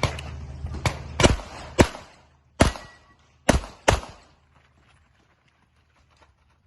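A string of about seven pistol shots fired at an uneven pace during a practical shooting (IPSC) stage, ending about four seconds in.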